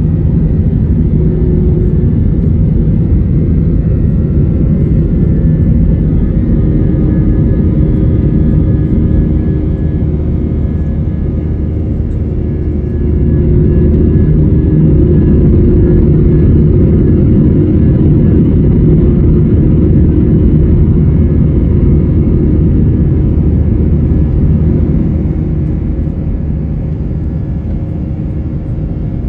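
Airbus A321 jet engines at takeoff thrust: a loud, steady, deep rumble with a hum of engine tones in it. It swells about a third of the way in and eases off again near the end.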